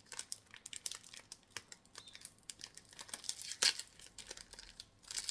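Crinkling and crackling of a thin Pokémon booster pack wrapper being handled and pulled at in an attempt to tear it open by hand, in short irregular crackles with one sharper one about three and a half seconds in.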